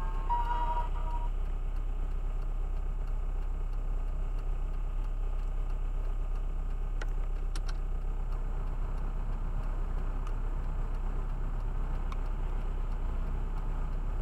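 A car engine idles steadily while the car stands still, heard from inside the cabin as a low, even rumble. In the first second a short electronic tone sounds, and about halfway through there are a couple of faint clicks.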